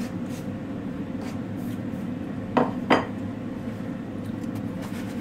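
A plate knocked down onto a kitchen countertop: two quick clinks close together, over a steady low hum.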